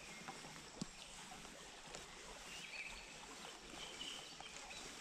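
Faint steady outdoor background hiss with a few short high bird chirps and one small click just under a second in.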